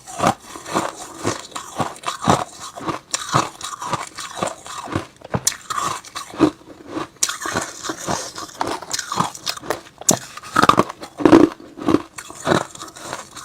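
Close-miked biting and chewing of hard, crunchy freezer-frost ice: a steady run of sharp crunches, about two a second, with a louder cluster of bites a little past the middle.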